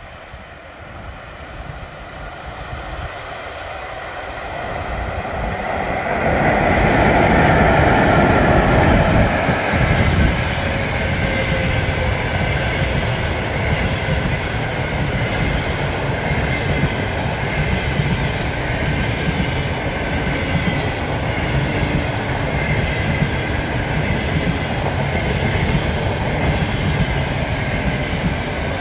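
ChS7 electric locomotive hauling a passenger train approaches, growing steadily louder, and passes close by about seven to ten seconds in. Then a long line of passenger coaches rolls past with a steady rumble of wheels on rail.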